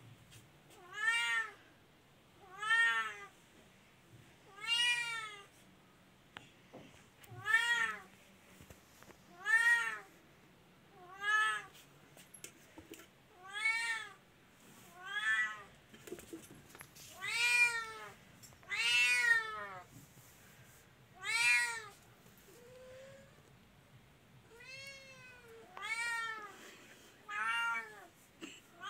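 Kitten crying: high-pitched meows repeated over and over, about one every one and a half to two seconds, each rising then falling in pitch. A few calls after the middle are softer.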